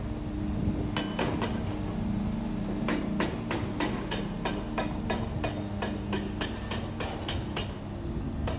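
Rapid hammering impacts on concrete and steel bridge wreckage, about four or five blows a second, starting about a second in, over a steady low engine hum from the demolition machinery.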